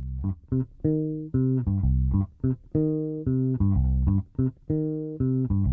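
Background music: a plucked bass and guitar riff of short, sharply struck notes alternating with longer held ones.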